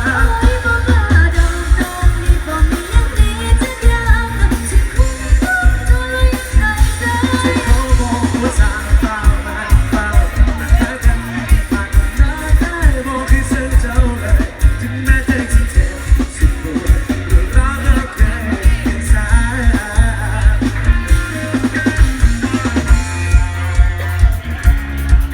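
A song with singing, guitar and drums played loud through a sound system, with a heavy, regular bass beat.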